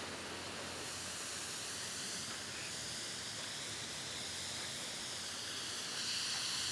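Fire hose nozzle spraying a wide fog stream of water onto a burning vehicle: a steady hiss of spray and steam, a little louder near the end.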